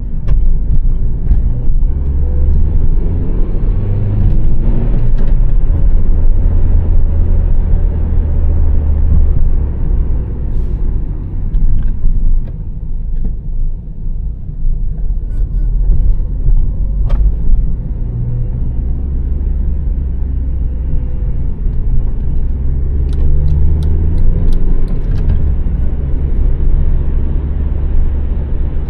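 2006 Honda Civic with a 1.8-litre petrol engine being driven: steady low engine and road rumble. The engine note rises as it accelerates a few seconds in and again near the end, with a few short clicks.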